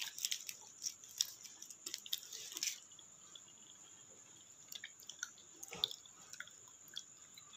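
Faint wet mouth clicks and smacks from chewing a piece of chocolate. They come thickest in the first few seconds, then thin to a few scattered clicks.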